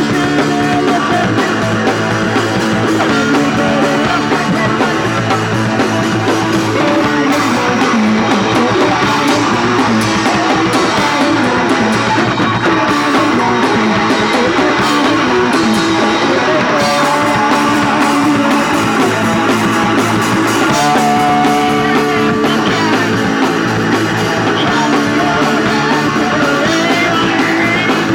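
Punk rock band playing live: loud distorted electric guitar, bass and drum kit, with singing at times.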